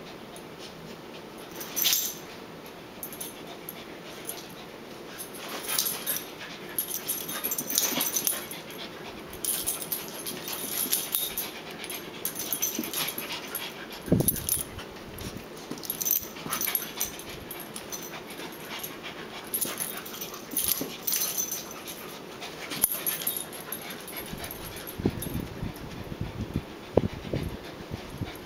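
Two small dogs play-fighting, making irregular short vocal noises in quick bursts.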